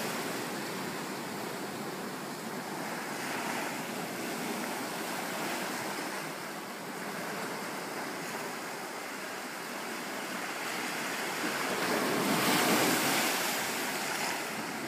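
Ocean surf washing up a sandy cove and breaking around rocks: a steady rushing wash that swells and ebbs, with a louder wave about twelve seconds in.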